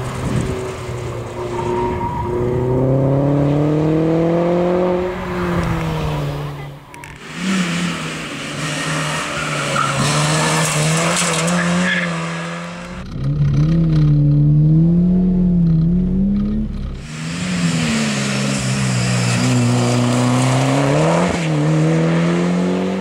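Competition cars' engines revving hard on a slalom course: an Opel Speedster, then a white saloon. The engine pitch climbs through the gears and drops sharply on lifts and braking, over and over.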